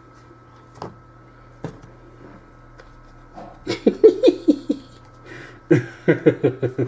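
A man laughing in two short bursts of rapid chuckles, the second starting about a second after the first ends; a couple of faint clicks come before them.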